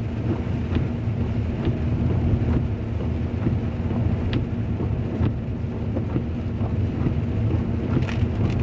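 Heavy rain and wet-tyre hiss heard from inside a moving car, over a low steady road rumble, with scattered faint ticks.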